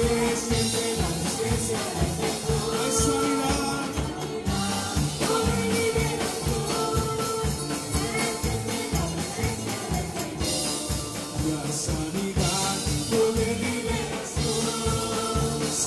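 Live worship band playing an upbeat song with a steady beat: drum kit, electric bass and keyboard, with voices singing over it.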